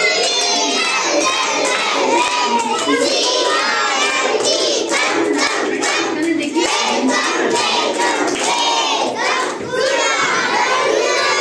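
A large group of schoolchildren shouting and calling out together, many high voices overlapping at a steady level.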